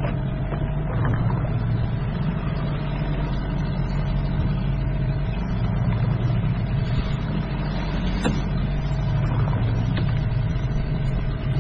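An engine running steadily at an even speed, a continuous low hum.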